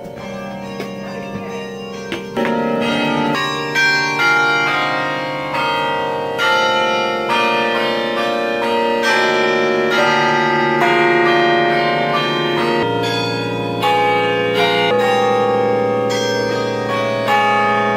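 Automatic tower bells ringing a slow tune, a new note struck about every second and each ringing on under the next; a deeper bell joins about thirteen seconds in.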